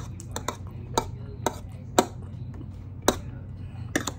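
Metal fork clinking and scraping against a dinner plate while picking up mixed vegetables: a string of sharp clinks, about one every half second.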